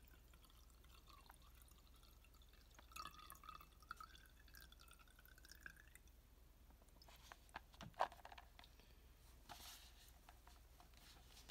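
Paint thinner being poured from a plastic cup into a glass jar, a faint trickle with a thin tone that slowly rises in pitch. Then a few light clicks and a sharper knock about eight seconds in.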